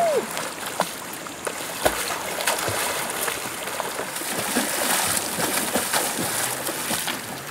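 River water splashing and sloshing as people swim and duck under the surface, a continuous wash with many small sharp splats.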